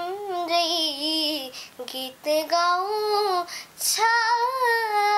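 A young girl singing alone without accompaniment, in phrases broken by short pauses for breath. Her long held notes waver with vibrato.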